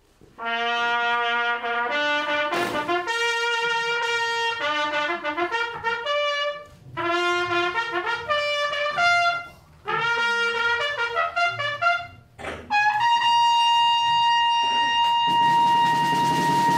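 A trumpet playing a melody in three phrases with short breaks between them, then holding one long high note through the last few seconds. A low, rough noise comes in under the held note a couple of seconds before the end.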